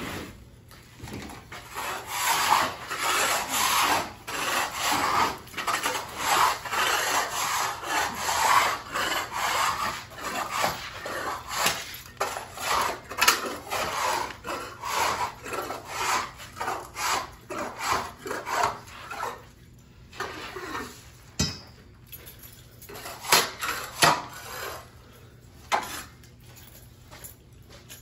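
Long-handled floor scraper pushed along a hard floor in quick repeated strokes, scraping up carpet padding stuck to it. The strokes thin out in the last third into scattered scrapes and knocks.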